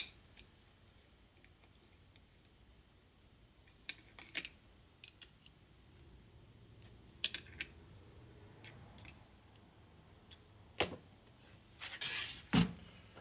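Light metallic clicks and taps as a screwdriver works a valve stem seal on an aluminium Harley-Davidson Evo cylinder head. A few single clicks are spread out, then a louder clatter and knock near the end as the head is picked up and handled on the workbench.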